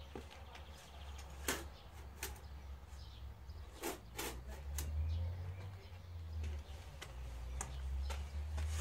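A shovel scooping compost from a wheelbarrow: a handful of sharp scrapes and knocks of the blade against the barrow, coming irregularly, over a low rumble.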